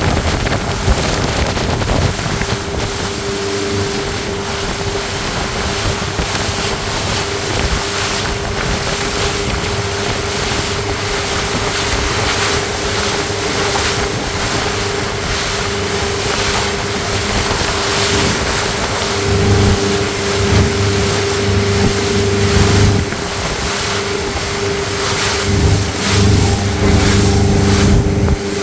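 Motorboat engine running steadily at speed, with water rushing and splashing in the wake and wind buffeting the microphone. A deeper hum joins twice in the latter part.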